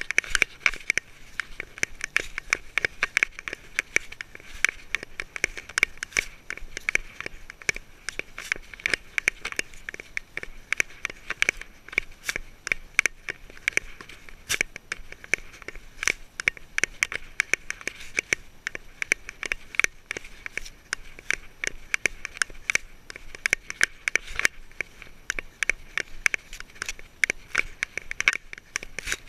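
Continuous crackling and scraping from a collar-mounted GoPro Hero 3+ in its housing, rubbed by the miniature schnauzer's beard fur and jostled as the dog moves through grass. The sound comes as a quick, uneven run of sharp clicks and rustles.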